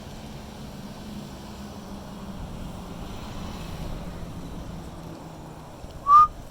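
Wind rumbling over the microphone, with a faint low hum under it. About six seconds in comes one brief, loud, high-pitched squeak.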